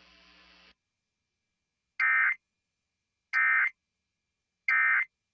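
NOAA Weather Radio EAS end-of-message data signal: three identical short digital data bursts, evenly spaced a little over a second apart, marking the end of the alert. Before them, faint radio hiss and hum cuts off within the first second.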